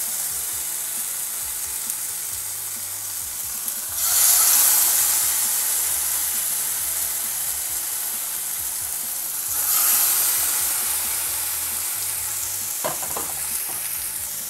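Masala-marinated cod pieces sizzling in hot coconut oil in a frying pan. The sizzle swells about four seconds in and again near ten seconds, as each new piece goes into the oil, with a light tap near the end.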